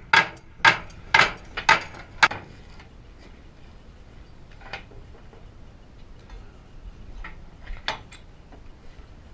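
Sledgehammers striking a hot iron wagon tire to drive it down over the wooden wheel's rim: five sharp strikes about two a second, then a couple of faint metallic knocks.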